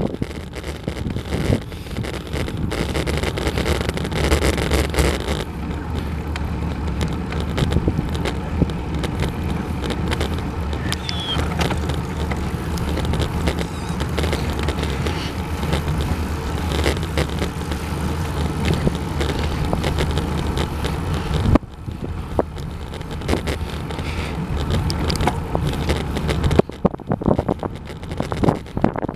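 Wind buffeting the microphone of a bicycle-mounted camera, with steady road and tyre rumble as the bike climbs a hill road. The noise drops briefly about 21 seconds in and again near the end.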